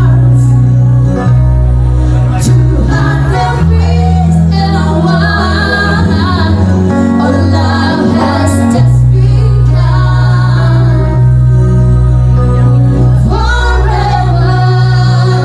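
Loud music with singing over a deep bass line.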